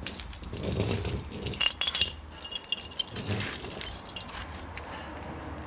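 Metal clinking and rattling as a bottle jack and axle stand are handled and set under a car, with short ringing metallic taps in the middle.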